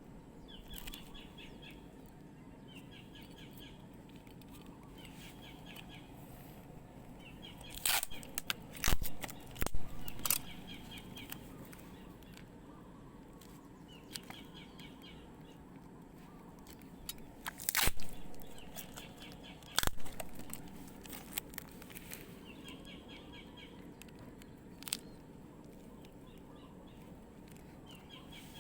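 A small bird chirping in short repeated bursts every couple of seconds, with a few sharp clicks and knocks from hands working with parts, loudest in two clusters about a third of the way in and a little past the middle.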